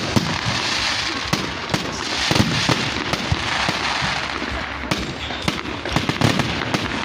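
Fireworks going off: a dense, continuous crackle with many sharp bangs scattered irregularly throughout.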